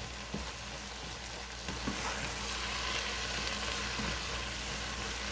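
Chopped tomatoes and onions sizzling as they fry in oil in a cooking pot. The steady hiss grows a little louder about two seconds in, with a few faint clicks.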